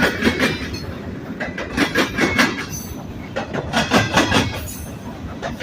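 Freight train cars rolling past, their wheels clacking over rail joints in groups about every two seconds.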